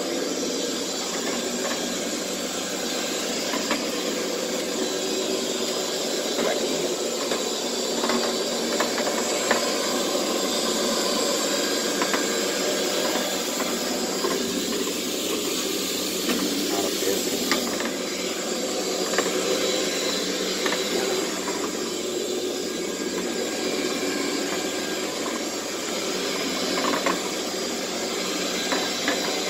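Electric carpet scrubbing machine running steadily as it is pushed over carpet: a continuous motor hum with a brushing hiss, with scattered light clicks.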